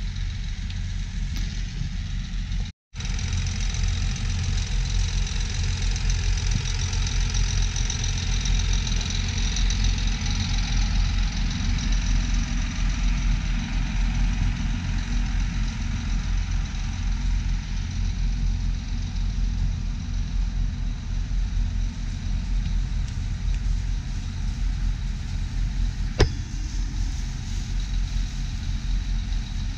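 A farm diesel engine idling steadily with a low rumble. The sound drops out briefly about three seconds in, and there is one sharp click near the end.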